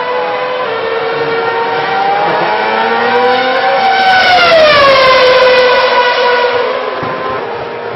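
2006 Formula One V8 engines at high revs. Several cars are heard at once, and one passes close about four to five seconds in, its pitch dropping sharply as it goes by.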